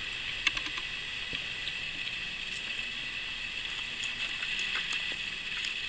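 Steady background hiss with a single sharp click about half a second in, then light clicks and taps of wooden chopsticks against the fried chicken and its plastic bento tray during the last two seconds.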